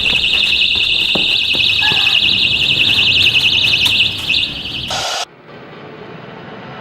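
DoubleSafe personal safety alarm sounding: a loud, rapidly warbling high-pitched shriek, which weakens about four seconds in and cuts off about five seconds in.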